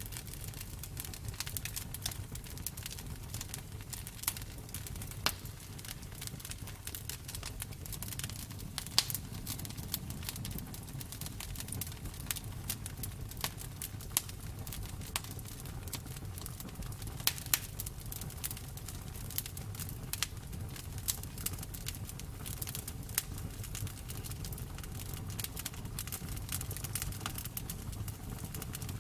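Wood fire crackling: irregular sharp pops and snaps scattered over a steady low background hiss.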